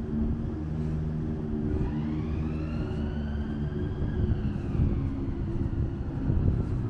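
City street traffic: vehicle engines running low under wind rumble on the microphone, with a high whine that rises about two seconds in, holds, then falls away about a second later.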